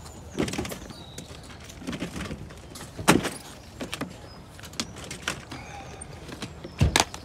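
Plastic storage crates being shifted and lifted out of a car boot: scattered knocks and clatters, the loudest about three seconds in, with a heavy thump near the end.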